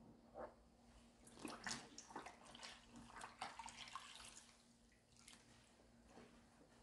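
Faint water splashing and dripping, a cluster of small splashes that begins about a second in and dies away after the middle, as cotton pads are wetted in lukewarm water for wiping the face. A faint steady hum sits underneath.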